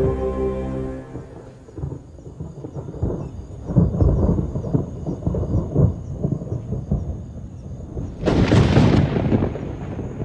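Thunder rumbling in low, uneven rolls, with a louder crack about eight seconds in that dies away. Soft music fades out in the first second.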